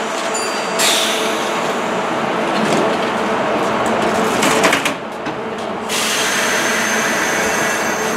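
Kintetsu 15400 series electric train standing at a station platform, with a steady mechanical hum and noise from the stopped train. The noise swells about a second in and thins briefly about five seconds in.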